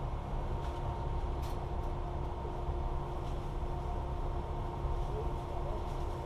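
A engine running steadily with a constant low rumble and a steady hum, with a few faint clicks in the first two seconds.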